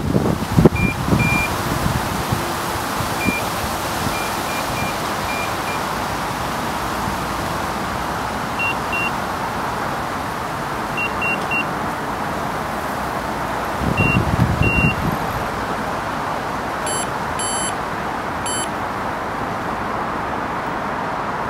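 Wind buffeting the microphone, with carp bite alarms giving short beeps at a few different pitches, some singly and some in quick runs of two or three. A louder gust or knock comes about fourteen seconds in.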